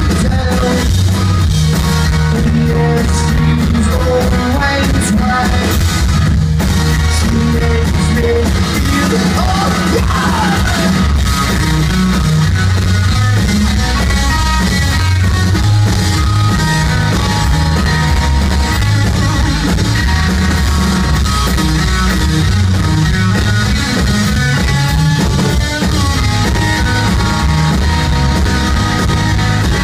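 Live rock band playing loud and steady: electric guitar, bass guitar and drum kit, with a short falling guitar glide about ten seconds in.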